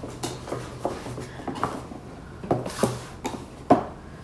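Small items being handled and set down on a tabletop: a series of light knocks and clatters, the loudest about three and a half seconds in.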